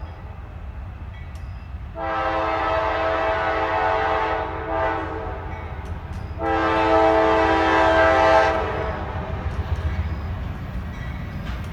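Locomotive air horn on a Norfolk Southern GE D9-44CW sounding two long blasts a couple of seconds apart, the second louder, over the low rumble of the passing train.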